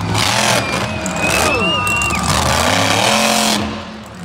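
Monster truck engine revving hard, its pitch rising and falling again and again.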